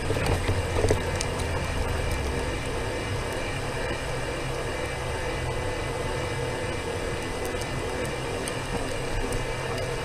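Small electric vehicle, a mobility scooter, running steadily along a concrete path at walking pace, its drive giving a constant hum over tyre and road noise. A short louder bump comes about a second in.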